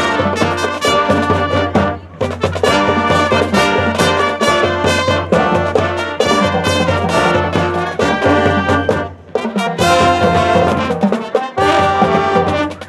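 Marching band playing its field show: brass ensemble carrying the tune over drum-line percussion, with brief breaks in the sound about two seconds in and again just past nine seconds.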